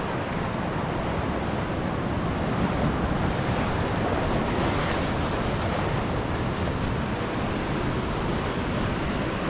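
Steady wind buffeting the microphone over a continuous wash of water, with no distinct events.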